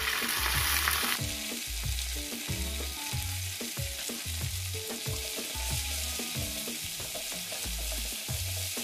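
Sliced onions with mint and coriander leaves sizzling in hot oil in a kadai, stirred and scraped with a wooden spatula: the onion tempering being fried.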